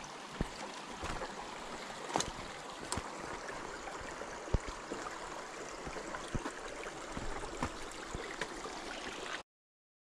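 Shallow rocky woodland creek trickling and gurgling steadily, with scattered light clicks over it. The sound cuts off abruptly near the end.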